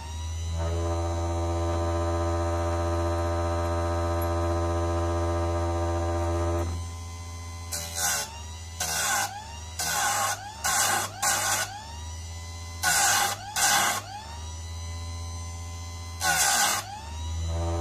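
Einhell electric chain sharpener's grinding-wheel motor running with a steady whine. About seven seconds in, the wheel starts being lowered onto the chainsaw chain's cutter teeth: about nine short, loud grinding passes of the abrasive wheel on steel, with the motor running between them.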